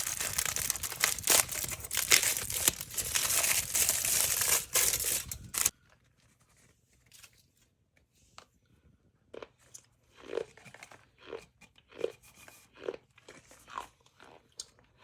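Loud crinkling, tearing noise that cuts off suddenly about six seconds in, followed by soft, scattered crunches like chewing.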